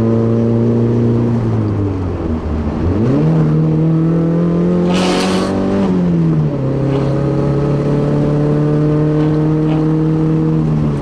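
Nissan 240SX's turbocharged SR20DET four-cylinder with a straight-pipe exhaust, driving under way: a steady engine drone whose pitch drops and then jumps up about two to three seconds in, and drops again about six seconds in, as gears change. A short hiss about five seconds in.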